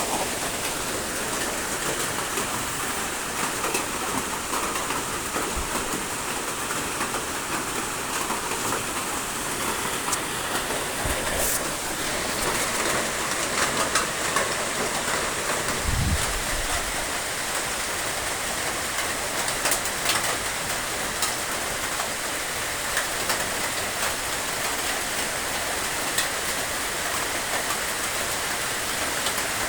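Steady rain falling and pattering on surfaces, with scattered drop ticks and a brief low thump about sixteen seconds in.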